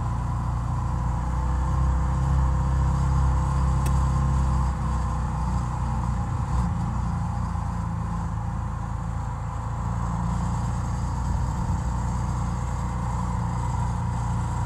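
A car driving with a steady low rumble of engine and road noise.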